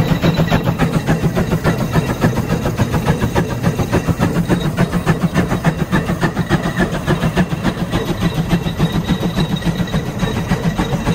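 Case steam traction engine running under way, its exhaust chuffing in a fast, even beat with mechanical clatter from its running gear.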